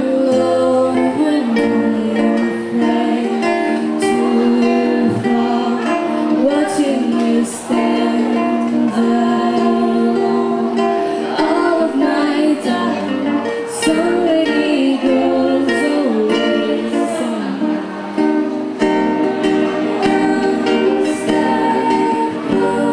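Acoustic music: plucked strings played as chords, with a voice singing over them.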